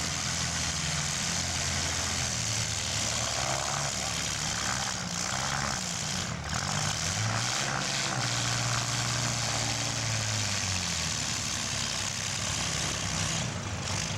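Compact-car engines in a mini car demolition derby revving, their pitch rising and falling again and again as the cars accelerate and back off.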